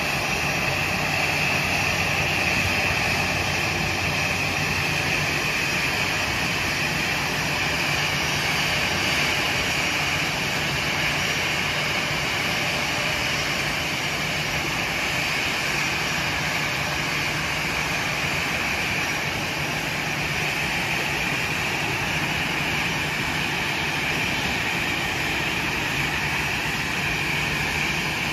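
Airbus A320-family airliner's twin jet engines running steadily at taxi power: a high whine over a low rumble.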